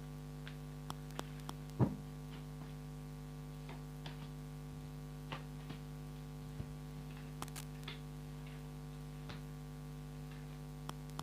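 Steady electrical mains hum with light scattered clicks and taps, one sharper knock about two seconds in.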